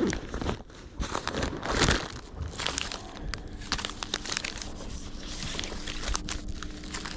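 Plastic and foil soft-bait packets crinkling and rustling as they are handled and shuffled, in irregular crackles.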